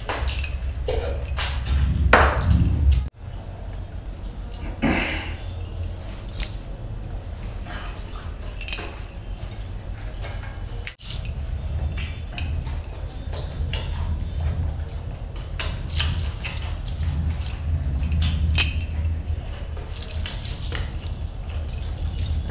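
A man eating biryani rice and a grilled chicken drumstick by hand: chewing and mouth sounds in a run of short crackles, with the metal jewellery on his hands and wrists clinking as he eats. The sound drops out briefly twice, about 3 and 11 seconds in.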